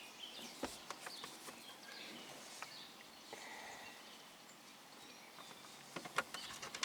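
Faint clicks and light scraping of a Phillips screwdriver backing a screw out of a car's plastic center console trim, with a cluster of clicks near the end, over a quiet background with faint bird chirps.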